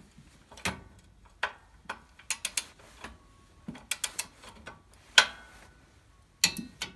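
Torque wrench ratcheting in irregular clusters of sharp clicks while tightening the cylinder head bolts of a Kohler K321 engine, with one louder, sharper click about five seconds in.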